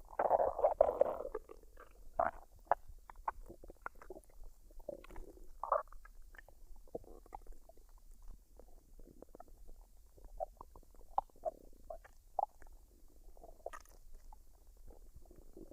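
A woman's stomach gurgling as it digests a full meal. There is a long, loud gurgle in the first second and a half, then a string of short pops and gurgles.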